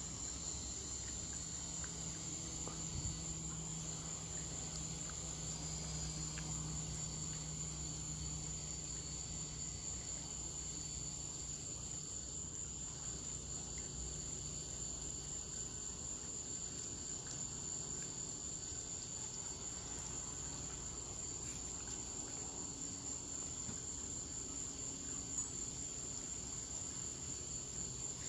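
Crickets trilling steadily in one unbroken high-pitched tone, over a faint low hum that fades somewhat after the first several seconds.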